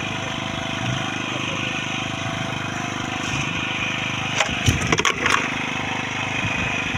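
An engine idling steadily, with a quick cluster of sharp knocks about four and a half to five and a half seconds in as a hooked emperor fish and the handline come up against the boat's side.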